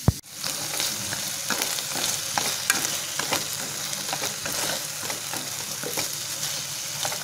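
Bird offal (gizzards, hearts and livers) stir-frying in oil in a pan, with a steady sizzle and many small crackles as chopsticks stir the pieces through the seasoning. A single sharp click at the very start.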